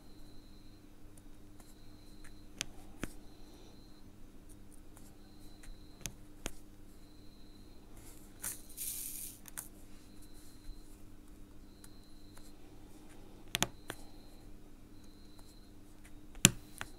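Round Diamond Dotz resin drills being pressed onto the sticky canvas with a drill pen, giving sparse light clicks a few seconds apart, the loudest near the end. A brief rustle about halfway through, over a steady low hum.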